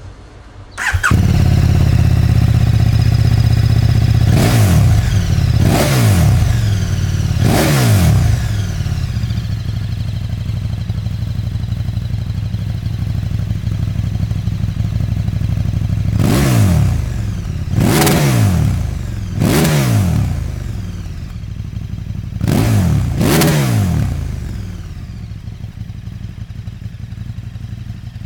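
KTM 1290 Super Duke R's V-twin engine, breathing through a Remus slip-on exhaust, starts up about a second in and idles, then is blipped: three quick revs, a pause at idle, three more, then two, before it settles back to a lower idle near the end.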